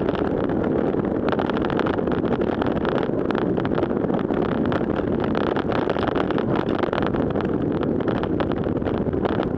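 Steady wind rush buffeting a bicycle-mounted camera's microphone at about 38 km/h, mixed with the hiss of tyres running through standing water on a flooded road.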